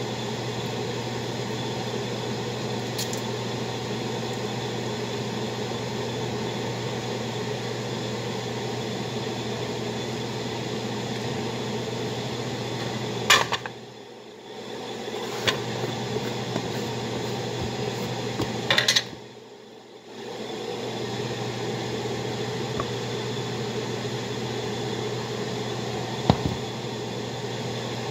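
Steady mechanical hum of a kitchen appliance fan, with a few sharp clicks and knocks of a plastic container and its lid as shrimp are breaded. The hum drops away briefly twice, each time just after a clatter.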